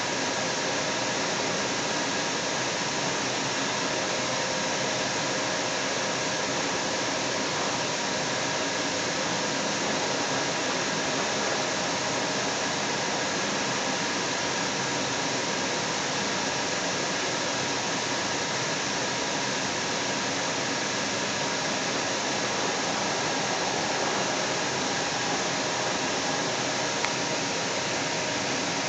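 Inside a Kinki Sharyo Link light rail car running at speed: a steady rushing noise of the train in motion with a faint steady hum under it, and one small click near the end.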